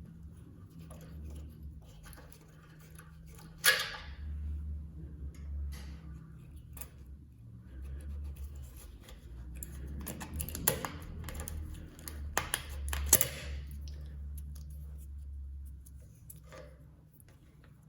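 Scattered clicks and knocks of small parts and tools being handled on a workbench, with a sharp knock about four seconds in and a cluster of knocks a little past the middle, over a low steady hum.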